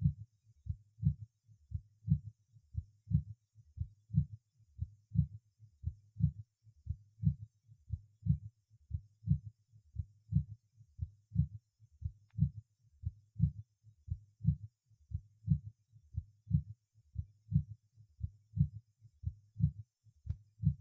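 Heart sounds of a patient with heart failure heard through a stethoscope, beating regularly at about one beat a second. A quiet, low third heart sound follows the second sound like its echo, the gallop rhythm that is a sign of heart failure.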